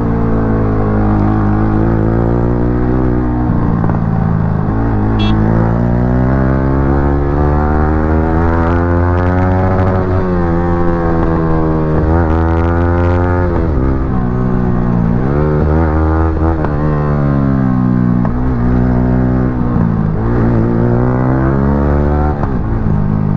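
Yamaha R15 V3's 155 cc single-cylinder engine through an aftermarket exhaust, ridden hard. Its pitch climbs and then drops several times as it revs up and shifts through the gears, with a crazy sound.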